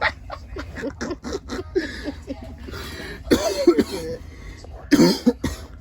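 Short irregular bursts of coughing and stifled laughter from people trying to hold in their laughs. The loudest bursts come about three and a half seconds in and near the end.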